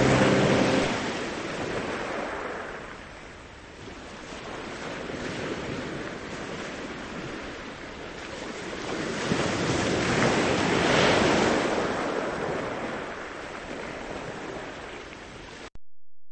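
Ocean surf: waves washing in and drawing back, swelling to a peak about ten seconds in and then ebbing, before cutting off suddenly near the end.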